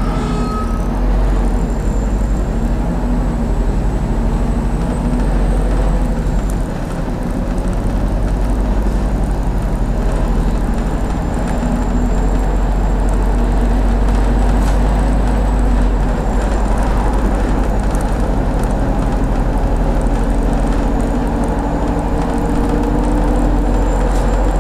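Diesel MAZ city bus heard from inside while driving: a steady low engine drone with road noise and a faint high whine. Near the end the engine note climbs as the bus picks up speed.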